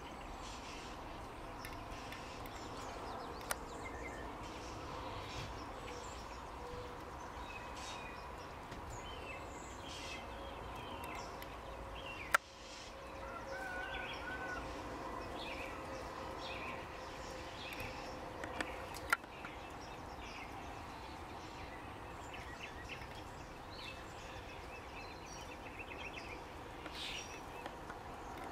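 Faint outdoor ambience: birds call now and then over a steady low hum, broken by two sharp clicks near the middle.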